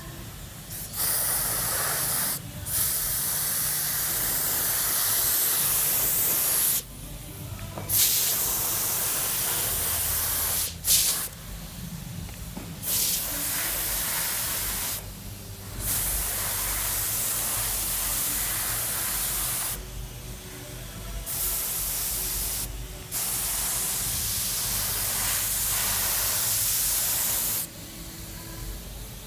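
Compressed-air gravity-feed paint spray gun hissing as the trigger is pulled in bursts of one to four seconds, about eight times, with short pauses between passes.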